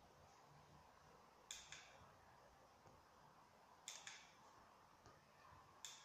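Near silence: faint room tone broken by three soft double clicks, about two and a half seconds apart.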